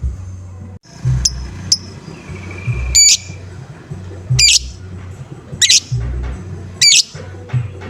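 Lovebird giving a series of short, harsh 'ngoek' calls, one about every second and a quarter, after two thin high chirps near the start, over background music with a steady low beat.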